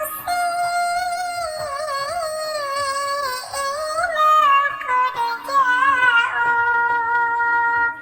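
A high-pitched voice singing a sholawat melody with ornamented, wavering pitch, over musical accompaniment.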